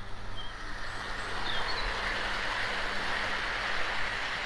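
OO gauge model train, a blue air-smoothed Pacific locomotive hauling maroon coaches, running past close by: a steady whirring rumble of motor and wheels on the rails that grows louder about half a second in. A few short bird chirps sound in the first two seconds.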